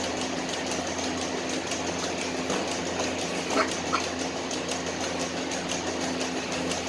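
A steady mechanical hum with a fast, even ticking running through it, and two short high chirps about three and a half seconds in.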